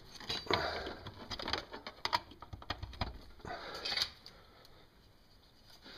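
Handling noises of someone rummaging on a workbench: rustling with many small clicks and knocks, busiest in the first four seconds and dying down after that.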